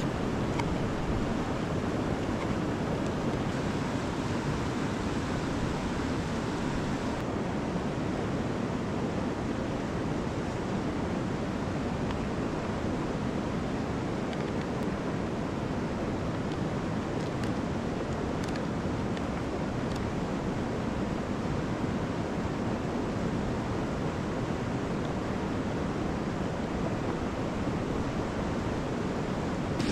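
Steady rushing of a mountain river, a constant even noise with a few faint ticks around the middle.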